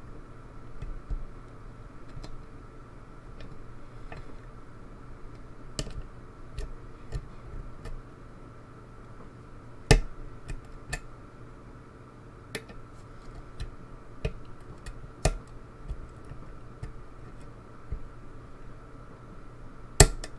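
Small, irregular metallic clicks of a hook pick working the pins inside a lock under tension, with two louder clicks about ten seconds in and near the end, over a steady low hum.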